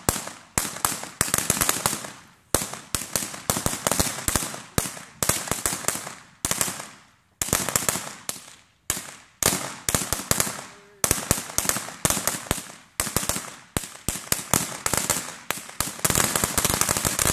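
Consumer fireworks going off in rapid crackling volleys of sharp pops, one cluster after another with brief gaps between them.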